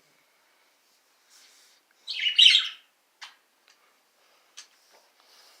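A pet bird gives one short, wavering chirp about two seconds in, followed by a couple of faint clicks.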